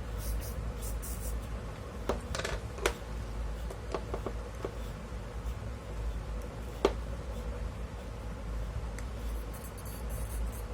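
A steady low hum with a faint steady whine under it, broken by a few sharp clicks and knocks, the loudest about three seconds in and again about seven seconds in.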